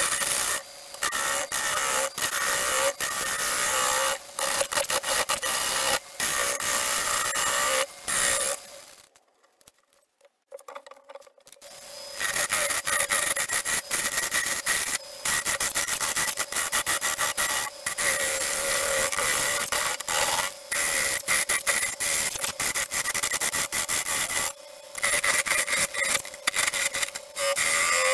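Bowl gouge cutting a spinning pine and plywood bowl blank on a wood lathe: a continuous rasping, scraping hiss of wood being cut, broken by short gaps as the tool eases off. About nine seconds in, the sound drops to near silence for roughly three seconds.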